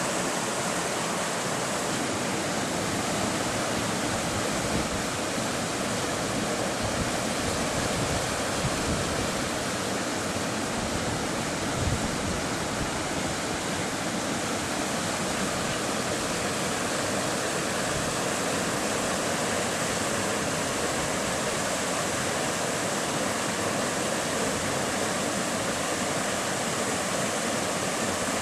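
Floodwater rushing steadily: fast-flowing, storm-swollen water giving an even, unbroken rush.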